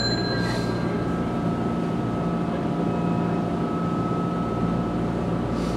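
Steady hum inside a standing Toyohashi Railway T1000 'Hottram' low-floor tram: its onboard electrical equipment running, with a faint steady whine over a low drone.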